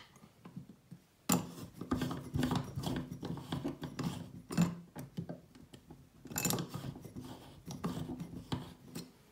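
Metal sleeve being pushed and twisted onto the chrome body of an Oras mixer tap: irregular scraping, rubbing and clicking of metal on metal, starting about a second in, with a few sharper scrapes along the way.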